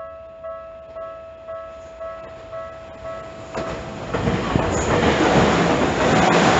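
Japanese level-crossing warning bell clanging about twice a second. About three and a half seconds in, a Tokyu Oimachi Line electric commuter train reaches the crossing, and its wheel and rail noise swells up and drowns out the bell as it passes.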